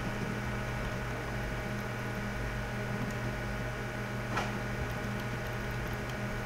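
Steady low electrical hum with a faint hiss, the background noise of the recording setup, with a single short click about four seconds in.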